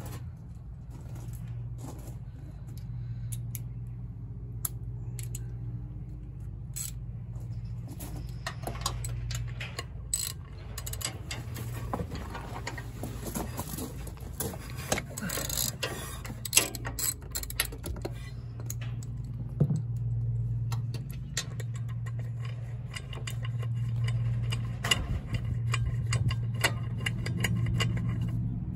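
Hand tools clicking and clinking on the drive clutch of a John Deere Gator XUV550: scattered small metal clicks and taps, over a steady low hum.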